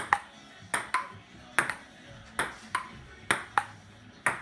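Plastic ping-pong ball in a table-tennis rally, bouncing on the table and struck back: sharp ticks about every half second, often in close pairs.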